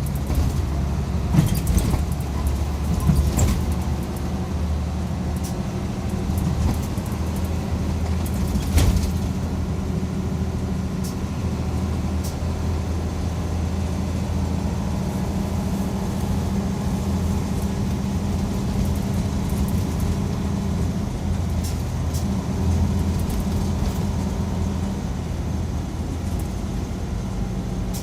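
Mitsubishi Fuso Aero Midi MK diesel bus heard from inside the cabin while under way, its engine running with a steady low drone. A few sharp knocks and rattles come in the first few seconds and again about nine seconds in.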